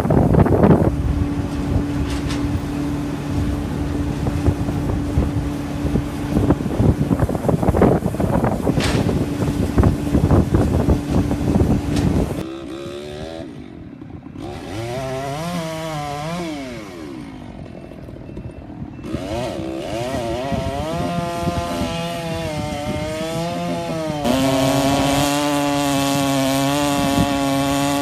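Chainsaw engine running at steady high revs for the first half. It then drops back, its pitch sliding up and down as the revs change, and is held at steady high revs again near the end.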